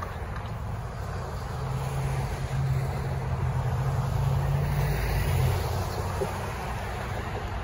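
Road traffic passing. Cars and pickup trucks drive by close, and an engine hum swells for a few seconds in the middle.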